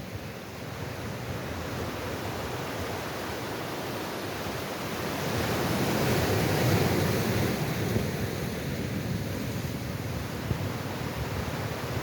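Sea waves washing onto a shore: a steady rush of surf that swells to its loudest about halfway through and then eases back.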